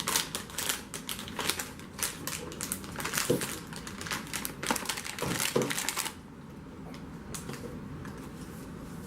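Cardboard blind box being ripped open by hand: a fast run of tearing, crackling clicks for about six seconds, then much quieter with only a few small clicks.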